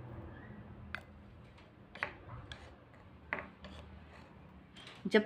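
Metal spoon scraping through dry licorice (mulethi) powder in a ceramic dish, with a few short scrapes and light clicks of the spoon against the dish.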